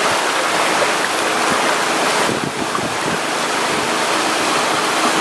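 Loud, steady rush of flowing water, with a short dip in level about two and a half seconds in.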